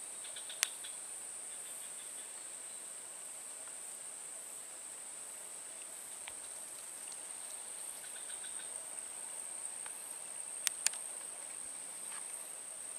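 A steady, high-pitched insect chorus. A few sharp clicks stand out: one near the start and two in quick succession about eleven seconds in.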